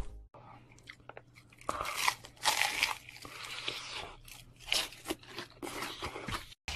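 A person biting and chewing crisp, crunchy food close to the microphone: several sharp crunches spread through, over a faint steady low hum.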